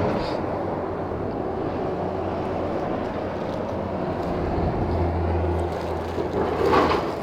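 Steady low engine rumble with a hum that swells briefly about five seconds in, and a short higher sound near the end.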